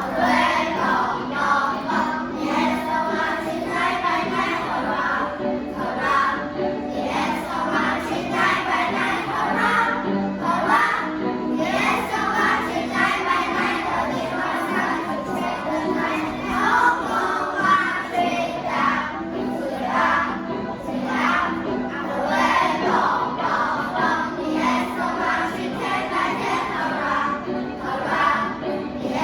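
A class of children singing an English song together in unison over a music backing track.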